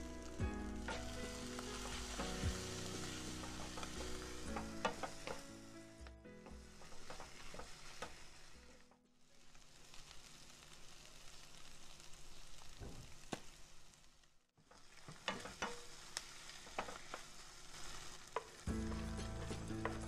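Flaked milkfish frying in oil in a wok, sizzling, while a wooden spoon stirs it and taps against the pan now and then. The sizzle dips briefly about a third of the way in and again later on.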